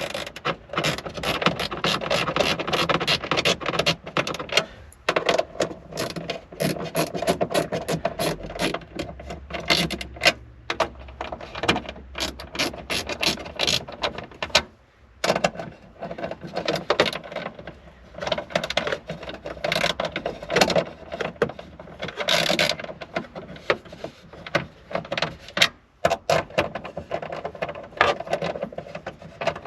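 Ratchet wrench clicking in long rapid runs with a few short pauses, as the tail light's fastening nuts are run down.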